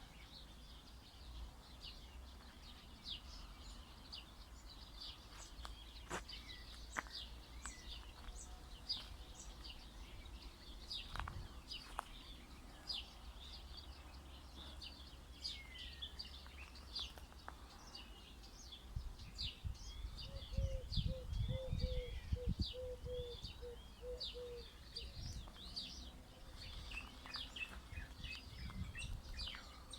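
Many small songbirds chirping and twittering throughout, with quick high chirps overlapping. About two-thirds of the way in, a lower call repeats about ten even notes, while a low rumble rises and is briefly the loudest sound.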